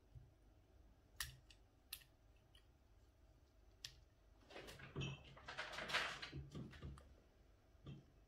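Light clicks and handling noise of small parts being fitted by hand into an airsoft gearbox: a few single clicks, then a busier run of clicking and rustling about halfway through.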